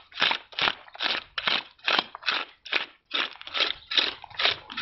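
Scales being scraped off a large carp with a hand tool: repeated rasping strokes, about three a second, each one tearing scales loose from the skin.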